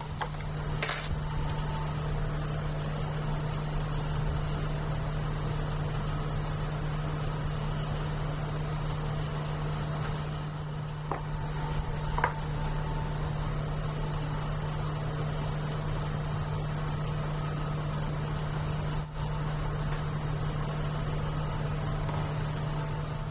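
A steady low hum throughout, with a few light clinks and scrapes of a knife against a plastic tub of melted chocolate, the sharpest about a second in.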